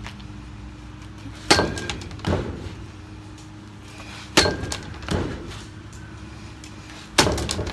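Softball bat hitting a SKLZ Hit-A-Way tethered training ball three times, about three seconds apart: each hit a sharp crack, followed under a second later by a softer second knock.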